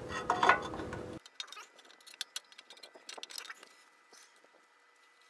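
Scattered light metallic clicks and clinks of brake shoes and their hardware being worked into place on a backing plate by hand.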